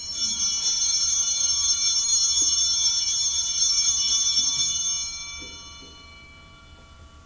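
Altar bells shaken in a steady jingling ring, rung at the elevation of the host just after the consecration. The ringing holds for about five seconds, then fades out.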